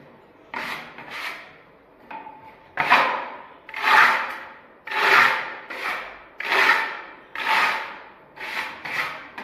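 A hand float scraped in strokes over a rough rustic texture coating on a wall. The strokes are faint at first, then from about three seconds in come about once a second, each swelling and fading.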